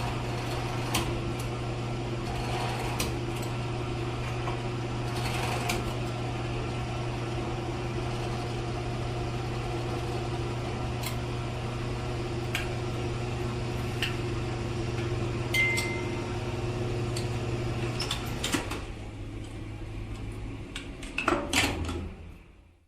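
Gas station ambience: a steady low mechanical hum with scattered clicks and knocks, and a short high beep about two-thirds of the way through. Near the end the hum drops away, a few clunks follow, and the sound fades out.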